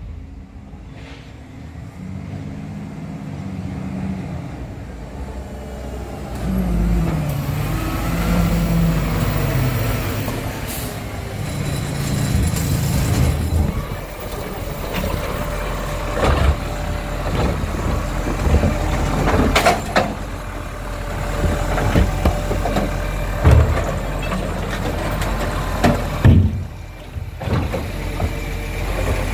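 Diesel engine of a side-loader garbage truck pulling up, its pitch rising and falling as it moves in, with air-brake hiss. From about halfway through, the truck's hydraulic side arm runs with repeated clanks and knocks as it reaches out and grips a wheelie bin.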